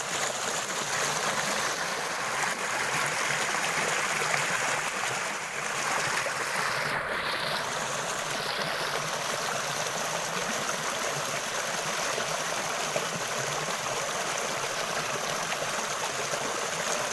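Water flowing steadily.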